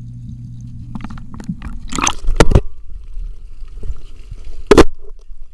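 Muffled underwater sound picked up through a waterproof camera case held in a pond: a steady low hum at first, then knocks, scrapes and watery squishing as the case is moved about, with loud bumps about two seconds in and again near the end.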